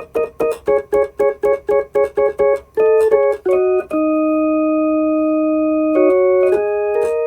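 Electronic keyboard with an organ-like tone. A chord is struck in short, even stabs about three times a second, then it moves through a few quick chord changes into a long held chord about four seconds in. Near the end come two more quick changes and another held chord.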